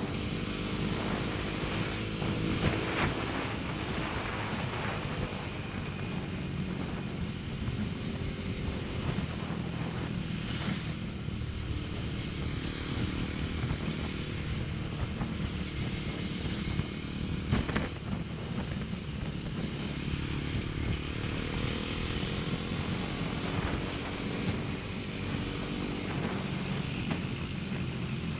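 Bajaj Pulsar NS200 single-cylinder engine running at a steady cruise, its pitch drifting slightly with small throttle changes, under a constant rush of wind on the microphone. A few brief knocks stand out, the loudest about two thirds of the way through.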